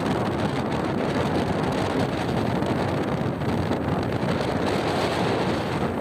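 Strong northeast-monsoon wind blowing across the microphone, a steady noise over the wash of rough surf breaking along the shore.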